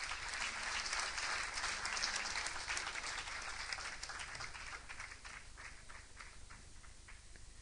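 Audience applauding: dense at first, thinning to scattered separate claps after about four seconds and dying away near the end.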